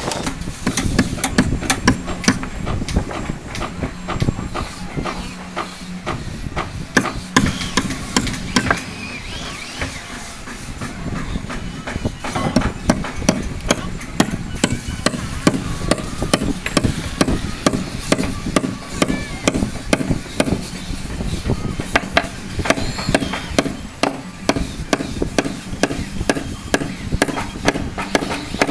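Repeated hammer blows on timber, a long run of sharp strikes in quick, uneven succession, as the wooden beams are knocked into place.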